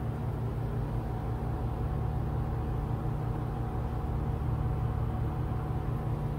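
Room air-conditioning unit running with a steady low hum.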